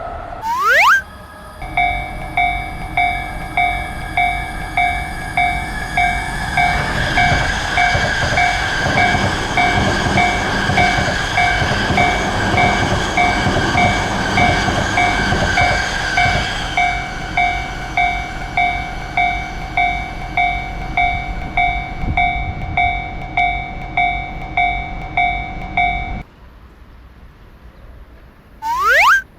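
Japanese level-crossing alarm ringing its steady repeating "kan-kan" bell while a train passes through, its rumble building about six seconds in and fading after about ten seconds. The bell cuts off suddenly near the end. A quick rising whistle-like sweep sounds just after the start and again just before the end.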